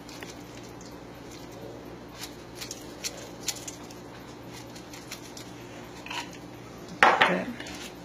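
Faint scattered ticks as dried insects are shaken from a small metal can into a stainless steel mixing bowl, then a loud knock and clatter about seven seconds in.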